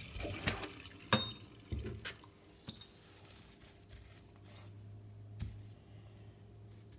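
Small metal parts clinking and knocking against each other and a sink, four times in the first three seconds, the sharpest with a brief ringing; a faint low hum follows.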